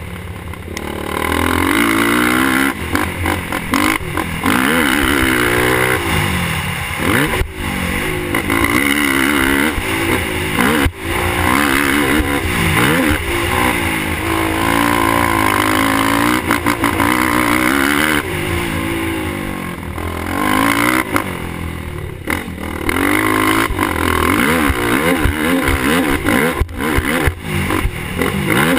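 Suzuki LTR450 sport quad's single-cylinder four-stroke engine heard on board, revving hard and easing off again and again, its pitch climbing through the gears and falling back for the corners. A few sharp knocks cut in over the bumps.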